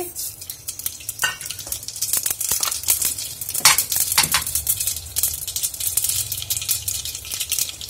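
Cumin and black mustard seeds sizzling in hot oil in a stainless steel pressure cooker, a steady crackle with sharp pops scattered through it, louder ones about a second and a half in and around four seconds.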